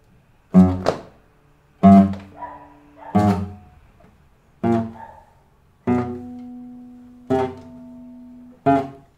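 Nylon-string classical guitar: seven chords plucked one at a time, about a second and a half apart, most stopped short soon after the attack, with a note held a little longer on two of them near the end. This is the timid, 'scared' (assustado) touch, where the player does not let the notes ring out their full length.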